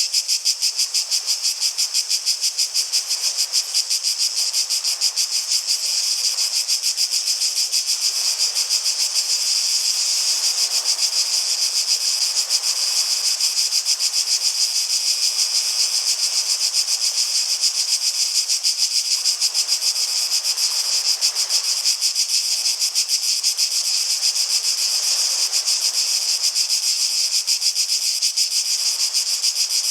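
Cicadas singing in a continuous, loud chorus with a fast, even pulse.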